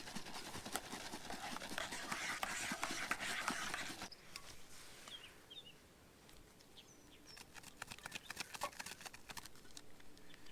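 Campfire crackling, with many sharp irregular pops and clicks, louder for the first few seconds and then quieter. A few short bird chirps come through faintly.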